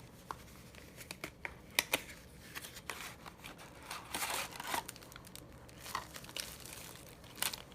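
Small product packaging being handled and opened: scattered sharp clicks and short bursts of plastic and paper crinkling, busiest about four seconds in.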